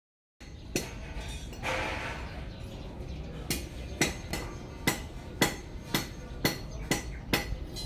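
A series of sharp knocks or taps at an even pace of about two a second, after a brief rushing noise about two seconds in.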